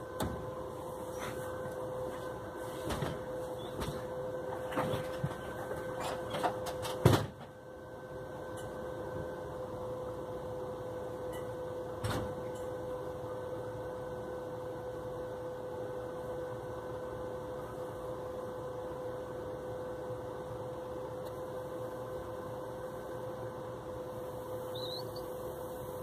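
A steady, even hum on one constant pitch, with scattered clicks and knocks over the first seven seconds and a single knock about twelve seconds in.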